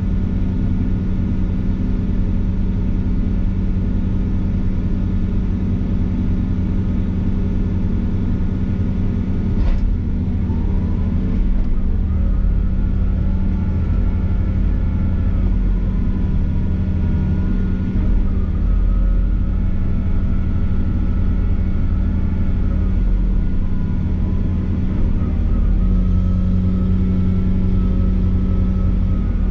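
Excavator's diesel engine running steadily, with a thin higher whine that wavers in pitch as the machine works. There is a single sharp knock about ten seconds in.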